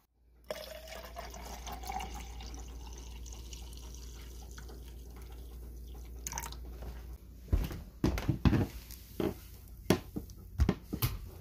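Coffee poured in a steady stream into a stainless steel tumbler, the tone rising as it begins to fill and the stream stopping about seven seconds in. After that comes a run of sharp knocks and clatters.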